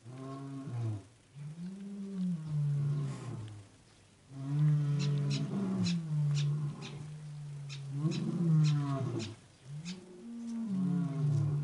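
Tiger cubs growling and moaning over their food: a series of drawn-out, wavering low calls, each lasting one to a few seconds, with light clicks of chewing and licking in between.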